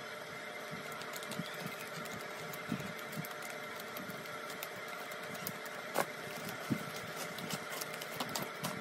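Scissors cutting through the tape and cardboard of a small shipping box, with scattered clicks, snips and small knocks of handling cardboard and a plastic mailer, over a steady background hum.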